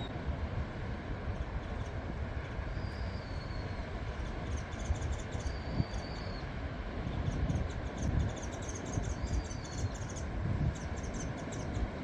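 Strong wind buffeting the microphone in gusts, with a bird's short, high, thin note repeating every few seconds and bouts of quick high twittering in between.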